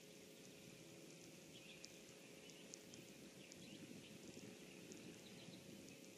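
Faint pond ambience near silence: a steady low hiss and hum, with scattered faint, short high chirps and ticks.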